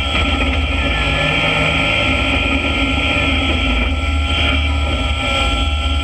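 Yamaha YXZ side-by-side rally car's engine running steadily, picked up by the onboard camera.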